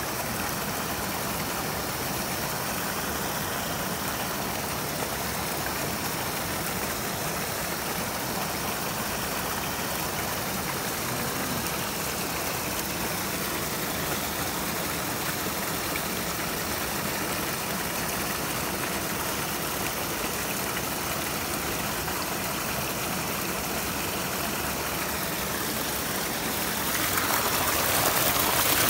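Stream water rushing and splashing over rocks in a shallow mountain brook, a steady hiss that grows louder near the end as the water tumbles down a small cascade.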